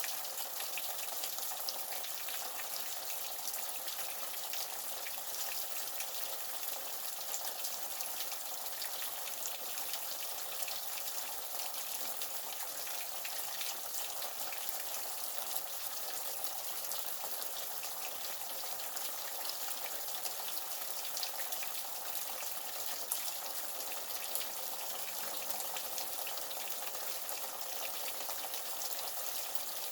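Water splashing and pattering steadily, with a rain-like hiss full of tiny droplet ticks.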